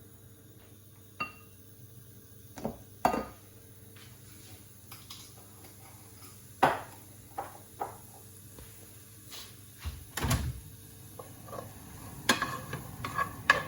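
Cooking utensils clinking and knocking against a frying pan and dishes, in scattered single strikes with a low thud about ten seconds in. Near the end the clatter gets quicker as stirring starts, over a faint sizzle.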